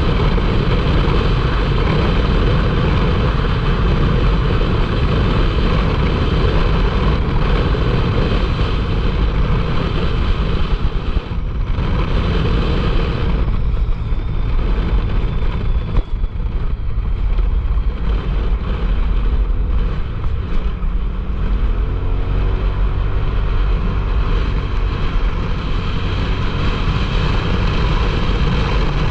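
Turbocharged side-by-side UTV driving on a dirt road: engine running under way with heavy wind and road noise. The engine note briefly eases and rises again a couple of times past the middle.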